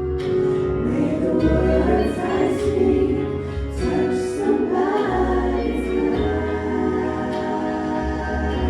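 Gospel choir singing with instrumental backing: sustained chords over a steady bass line.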